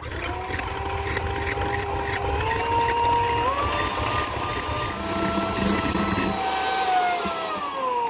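Electric hand mixer running, its motor whine stepping up in pitch twice as the speed is raised, then falling as it spins down when switched off at the end.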